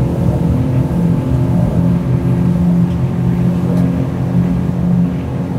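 Mercury 150 Pro XS outboard motor running hard at high speed, a steady engine note over the rush of wind and water.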